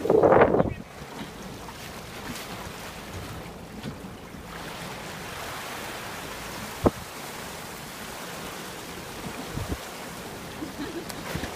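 Sea swell washing over a rocky shore, with water spilling off the rock ledges, and wind buffeting the microphone. A short loud burst comes right at the start, and a single sharp click comes past the middle.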